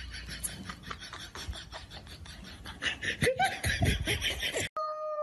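A person laughing in rapid breathy bursts that get louder near the end. Then the sound cuts off abruptly and a steady, high pitched call begins.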